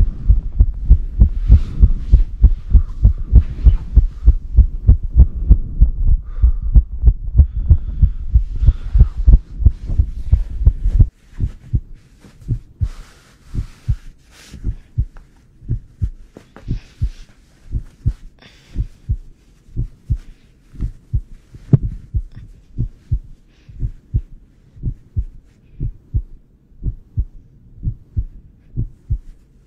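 Heartbeat sound: a steady train of low thumps, loud and quick for about the first eleven seconds, then suddenly much quieter and slower.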